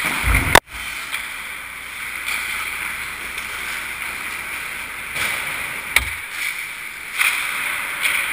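Indoor ice-rink game noise picked up by a GoPro on the goal net: a steady hiss of skating and arena sound, with a sharp knock about half a second in and a deeper knock about six seconds in.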